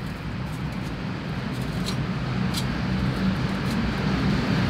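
Steady low rumbling background noise that swells slightly, with a couple of faint clicks around the middle.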